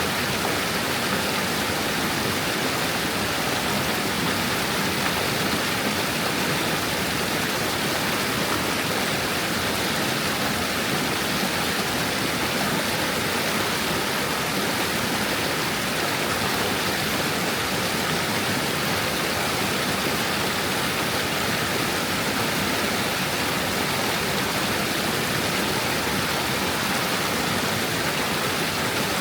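Stream water flowing over stones, a steady even rushing and babbling.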